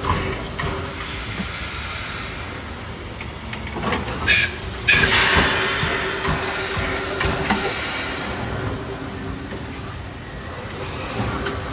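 Coal-fired steam locomotive (Dollywood Express Engine 70) standing under steam: a steady hiss with a constant hum, and louder bursts of escaping steam about four seconds in and again from five to six seconds.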